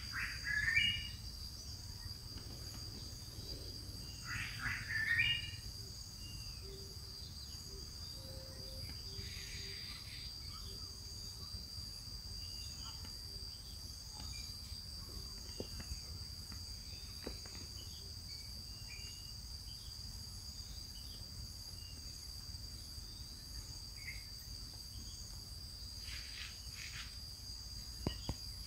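Steady, high-pitched insect chorus. Two short, high calls stand out near the start, about four seconds apart.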